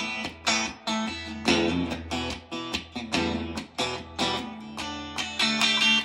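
1988 Fender Telecaster electric guitar played through an amplifier: picked chords in a steady rhythm, about two strokes a second. The guitar is being tried out on its newly installed three-way pickup switch.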